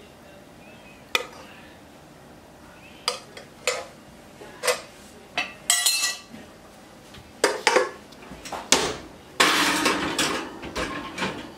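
Scattered clinks and knocks of a metal spoon against a small pot and a ceramic plate, some ringing briefly. A longer, busier clatter of kitchenware comes near the end.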